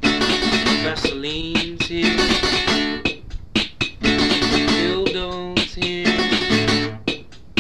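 Music track led by plucked guitar, with sliding notes and sharp percussive strikes between them.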